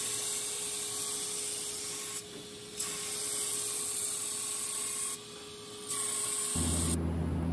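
Surface grinder grinding the faces of a steel damascus bar: a steady motor whine under the hiss of the abrasive wheel on steel, which swells in three passes with two short lulls between. Music comes in near the end.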